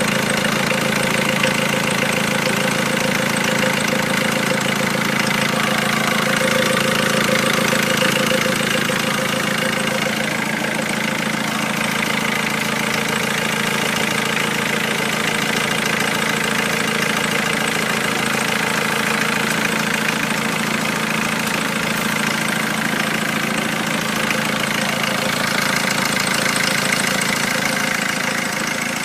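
Volkswagen T4 engine idling steadily.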